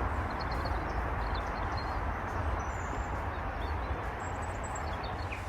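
Small stream, the Dedridge Burn, running steadily with a continuous rush of water, with a few faint bird chirps and a low wind rumble on the microphone.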